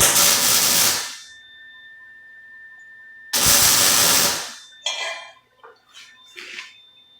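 Lincoln MIG welder laying two short welds, each a burst of arc hiss about a second long that starts abruptly, the second about three seconds after the first; a few faint short knocks and scrapes follow.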